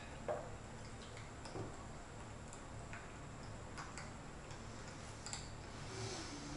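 A small porcelain tea cup set down on a wooden tea tray with a light click, followed by a few scattered soft clicks and taps of tea ware being handled, over a low steady room hum.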